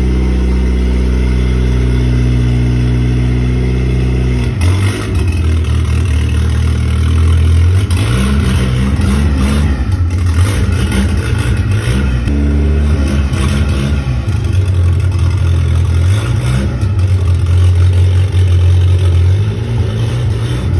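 Turbocharged Chevrolet Corsa pickup engine running at a steady speed, then from about four and a half seconds in pulling away and revving up and down repeatedly, with the turbo's fluttering chatter as the throttle is let off.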